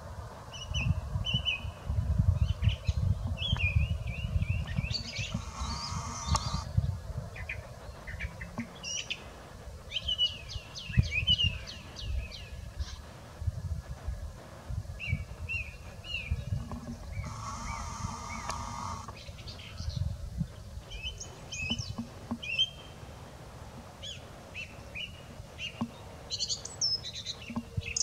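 Small birds chirping and calling in repeated short notes throughout, over a low rumble.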